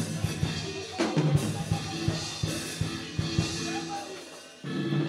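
Music with a drum kit playing irregular, punchy hits over held instrument tones.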